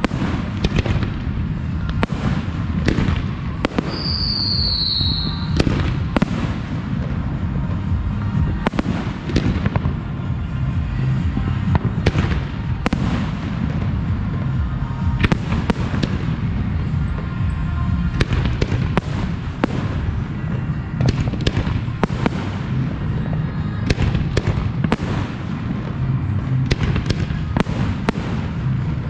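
Professional fireworks display: a rapid, continuous string of shell bursts and crackling reports over a heavy low rumble of booms, with a short high whistle that falls slightly about four seconds in.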